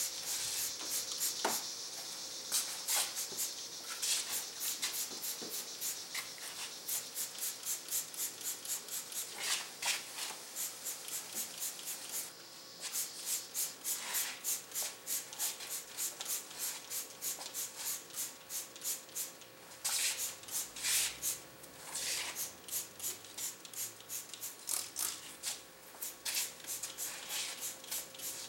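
Hand trigger spray bottle of Simple Green cleaner being pumped over an engine, a sharp squirt at each squeeze. The squirts come in runs, quickest in the middle at about four a second, with pauses between runs.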